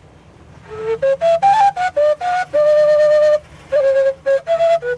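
A Colombian gaita, the cane duct flute of the Caribbean coast, playing a short melody starting about a second in. It moves through quick stepping notes, holds one long note, then plays several more short notes, over a low steady hum.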